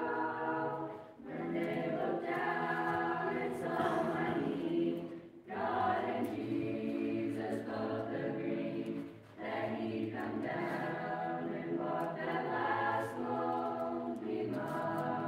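Mixed choir of children and teenagers singing unaccompanied, in sustained phrases with three short breaks between them.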